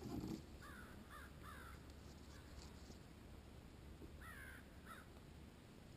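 Faint bird calls over near quiet: three quick calls in the first couple of seconds, then two more about four seconds in. A short low thump comes at the very start.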